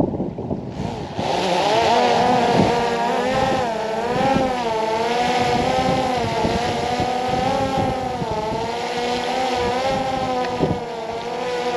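DJI quadcopter drone's propellers whining close by, starting about a second in; the pitch wavers up and down as the motors keep adjusting their speed.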